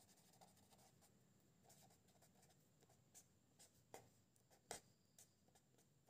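Faint scratching of a pen writing on paper, in short strokes, with a couple of sharper ticks about four and five seconds in.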